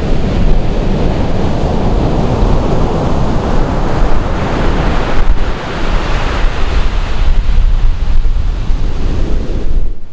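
Ocean surf breaking and washing up the beach, with wind buffeting the microphone. The wash swells through the middle and eases near the end.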